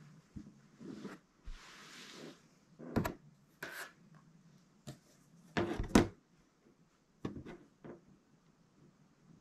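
Handling noises from quilting work: a scatter of sharp knocks and clacks, the loudest a pair near 6 seconds, with a brief stretch of rubbing or sliding fabric about two seconds in.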